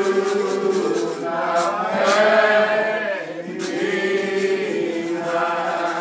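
A small church congregation singing a slow, unaccompanied hymn in several voices, each note long drawn out.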